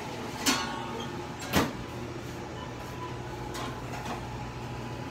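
Steady low machine hum with two sharp clacks about a second apart near the start, then two fainter clicks later on.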